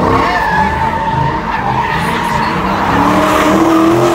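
Car tyres squealing against the pavement in a long, wavering squeal while the engine runs hard, its pitch climbing near the end as it revs up.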